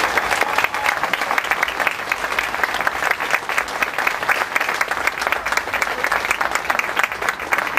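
Audience applauding, many hands clapping steadily at the close of a piece.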